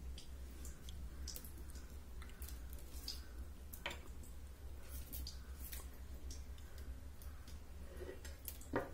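Scattered faint clicks and light taps over a steady low hum, with one sharper click near the end.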